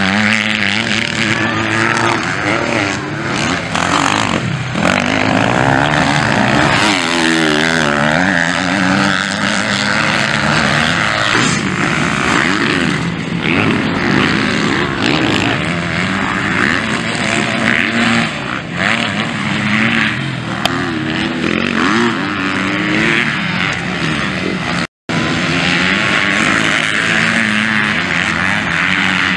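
Motocross bike engines running hard, revving up and falling back again and again as the bikes accelerate out of corners and through ruts. The sound cuts out for a moment near the end.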